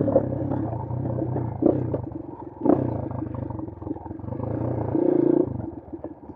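Bashan Brozz 250 dual-sport motorcycle engine running at low revs on the trail, the throttle opening and closing, with two sharp knocks from the bike over the ground. The engine drops back towards idle about five and a half seconds in.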